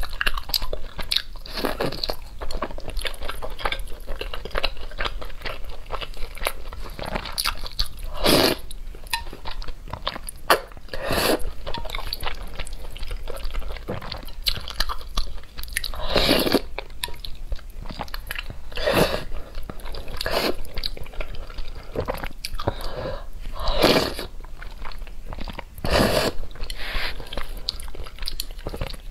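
Close-miked chewing and biting of noodles in black bean sauce: steady wet mouth clicks and smacks, with several louder slurps every few seconds.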